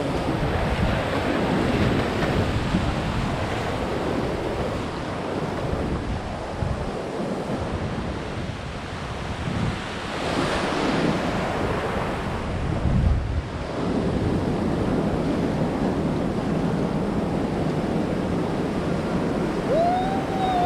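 Shallow ocean surf washing and breaking around waders' legs, with wind buffeting the camera's microphone. The surf surges louder about ten seconds in.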